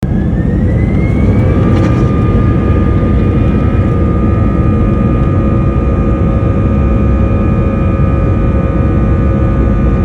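Jet airliner engines running with a loud, steady rumble and a whine that rises in pitch over the first second or so, then holds steady.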